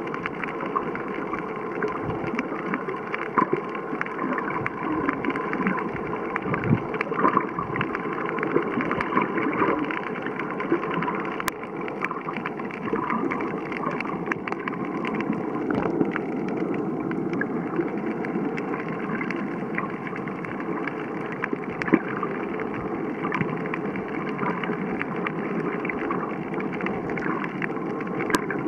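Underwater ambient noise heard through a submerged camera: a steady hiss with frequent small clicks and crackles.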